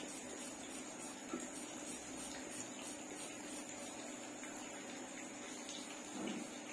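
Graphite pencil scratching on paper in short hatching and shading strokes, faint under a steady background hiss and hum. A brief low sound comes near the end.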